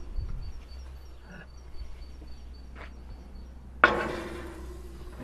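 A casserole dish being set into a gas grill: a few light knocks, then one sharp clank about four seconds in that rings briefly as it dies away.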